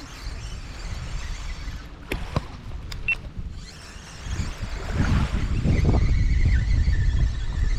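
Wind buffeting the microphone, rising to its strongest about five seconds in, with a few sharp clicks around the middle and a faint steady whine near the end.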